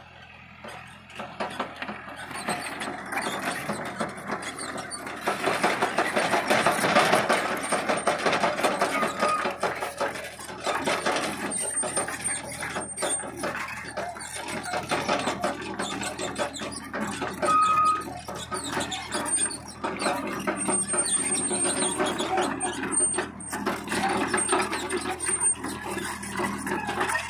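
Hydraulic excavator working in mud, its engine running under load with a few brief high squeals, and voices in the background.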